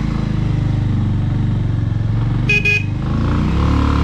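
Bajaj Avenger 180 motorcycle's single-cylinder engine running steadily, with two short horn beeps close together about two and a half seconds in.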